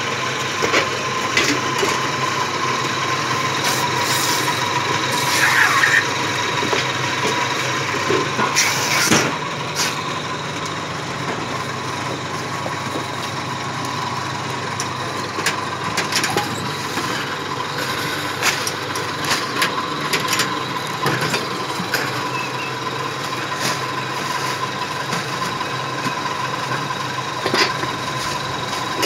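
A machine running steadily with a constant whine and low hum, with scattered clacks and knocks from handling ceramic toilets and packing material.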